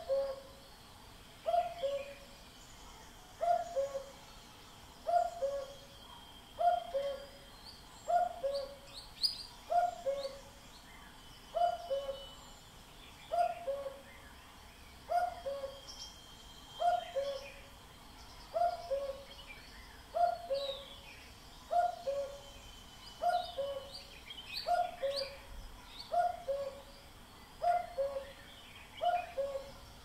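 Common cuckoo giving its classic 'cuck-oo' call, a higher note falling to a lower one. It repeats steadily, about once every second and a half to two seconds, with faint twittering of small birds behind it.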